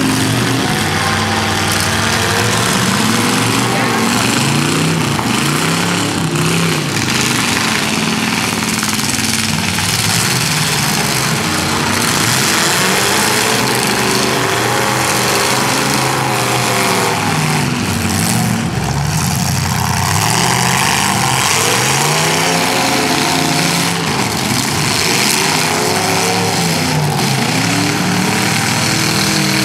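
Several demolition derby cars' engines revving up and down at once, overlapping with one another, over a constant din.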